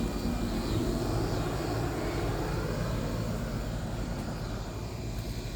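A distant engine drone: a steady low rumble that slowly fades.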